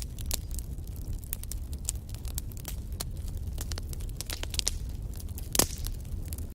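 Fire in a fireplace crackling, with irregular sharp pops over a steady low rumble of the flames; one louder pop near the end.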